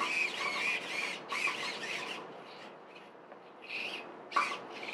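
The hobby servos of a 3D-printed delta robot whine in short, quick bursts as the arms jerk about, each burst wavering up and down in pitch. The bursts thin out to a lull about halfway through, then start again.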